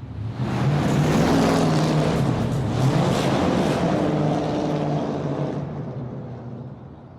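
Muscle car engine going past: the engine note swells in, stays loud for about four seconds, then fades away.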